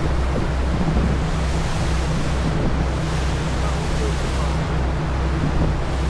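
Passenger ferry under way: steady rush of the churning wake and wind on the microphone, over the low drone of the engines, which beats about twice a second.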